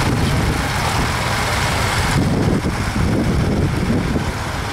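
Vintage tractor engines running steadily in the field, a low continuous engine sound.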